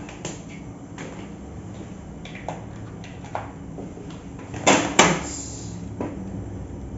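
Light plastic clicks and knocks from handling a USB power adapter and its cable while plugging it in, with two louder knocks close together about five seconds in.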